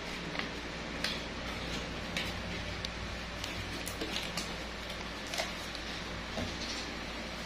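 Irregular light clicks and taps, about a dozen, scattered over a steady low room hum.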